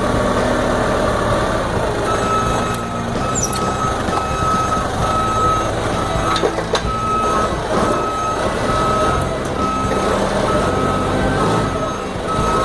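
Forklift engine running with its back-up alarm beeping in steady repeated pulses, starting about two seconds in, with a couple of metal knocks midway.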